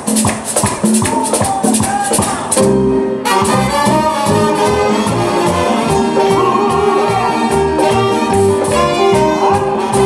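Live salsa band playing. Hand percussion drives the rhythm at first, then about three seconds in the full band comes in, horn section and bass included.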